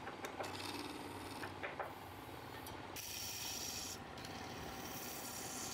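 Wood lathe running with a steady motor hum while wood is rubbed and scraped on the spinning work. A few light knocks come in the first two seconds, and a brighter, louder hiss starts about three seconds in.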